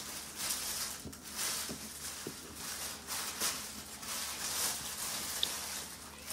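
Soft, wet eating sounds: fingers mixing rice with mutton-and-potato curry on a plate, and chewing a mouthful by hand, with the noise swelling and fading every second or so.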